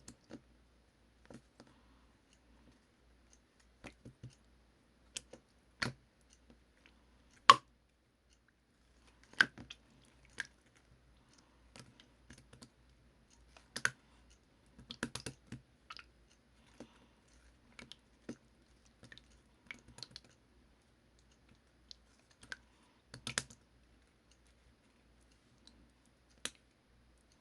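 Slime being squeezed and poked, giving irregular sharp clicking pops with quiet gaps between them; a few pops are louder.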